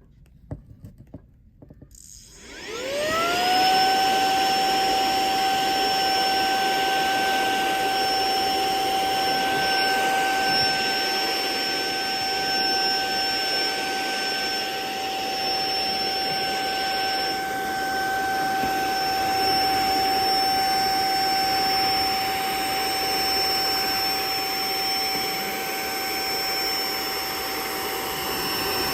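Saker mini handheld cordless vacuum cleaner switched on about two seconds in, after a few light clicks. Its motor spins up with a rising whine, then runs steadily, a high whine over rushing air, as it vacuums dust and debris.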